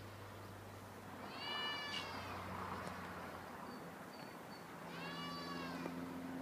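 Goat bleating twice, each bleat about a second long, rising and then falling in pitch.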